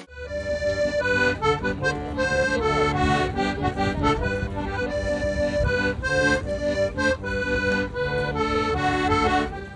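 An accordion playing a tune: a melody of short notes over held chords, starting and stopping abruptly.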